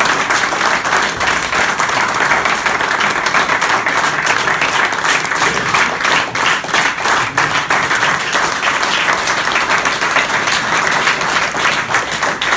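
A roomful of people applauding, many hands clapping together steadily.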